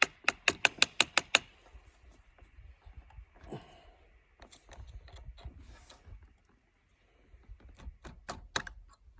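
Sharp clicks and knocks of an AR-15-style rifle being taken apart, the upper and lower receivers being separated: a quick run of about seven clicks in the first second and a half, then scattered clicks and a dull knock.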